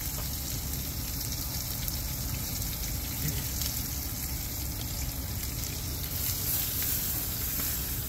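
Steak sizzling as it sears in a frying pan on a two-burner propane camp stove, a steady crackling sizzle over a low rumble.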